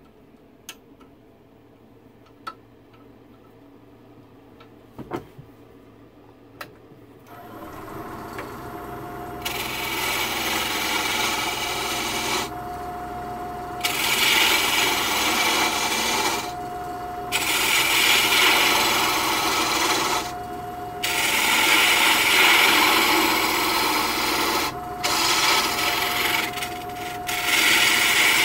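A few light clicks, then about seven seconds in a small wood lathe starts and runs with a steady hum and a thin steady tone. Soon after, a turning tool cuts into the spinning wooden blank, a loud rasping hiss of shavings in long passes broken by short pauses as the tool is lifted.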